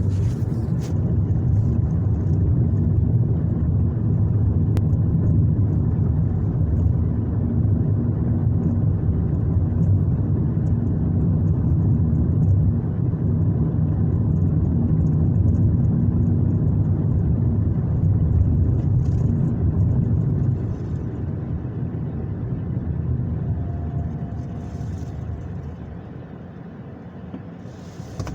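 Car running, heard from inside the cabin as a steady low rumble. It eases off about twenty seconds in and drops further near the end, as when the car slows down.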